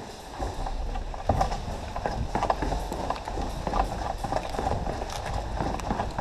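Hurried footsteps with irregular knocking and rattling from the airsoft rifle and gear, picked up by a camera mounted on the rifle.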